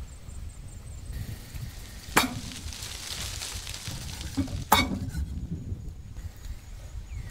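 Meat cleaver chopping a whole roasted chicken on a wooden chopping block: two heavy chops about two and a half seconds apart, with a crackling rustle between them, over a steady low rumble.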